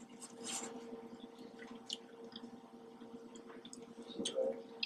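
Close-up chewing and wet mouth sounds of someone eating lobster meat: irregular small clicks and smacks, with a louder wet smack about four seconds in.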